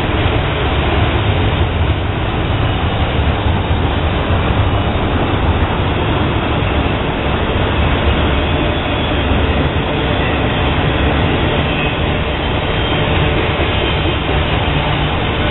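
Freight cars of an intermodal train rolling past, double-stack container cars and then trailer-carrying flatcars. Their steel wheels make a steady, loud rumble on the rails.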